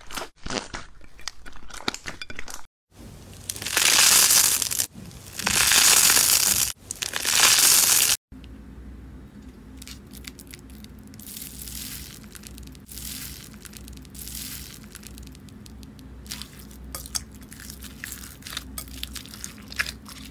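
Hands squeezing and kneading slime: first light crackles, then three loud crunching squeezes of a second or so each. For the second half, a hand presses into foam-bead slime (floam), giving many fine crackles and pops.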